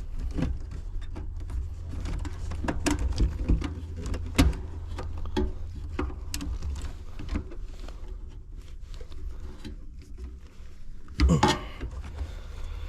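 Scattered clicks and knocks of hands and tools at work on a heat pump's wiring and metal cabinet, over a steady low rumble, with a louder clatter about eleven seconds in.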